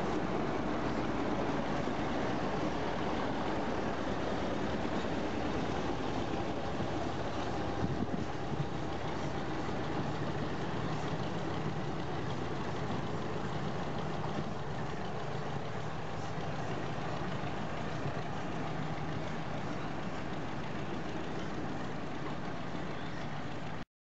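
Small diesel locomotive's engine running steadily as it hauls a coupled steam locomotive along the yard, with a single knock about eight seconds in. The sound cuts off suddenly just before the end.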